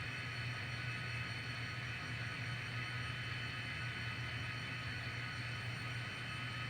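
N scale model diesel locomotive running on the layout: a steady low engine drone with hiss and thin, steady high-pitched electrical whine tones.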